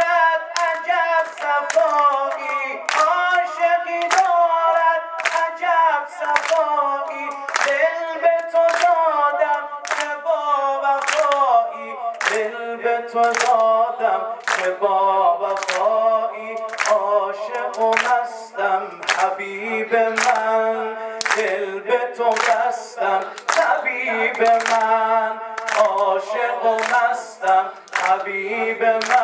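A man sings an unaccompanied Persian devotional song (maddahi) into a microphone, while hands clap steadily on the beat, about one to two claps a second.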